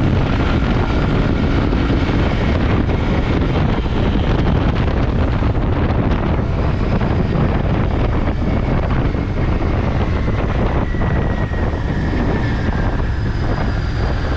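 Steady wind rush on the microphone while riding a Royal Enfield Continental GT 650, with the bike's 648 cc parallel-twin engine running under it.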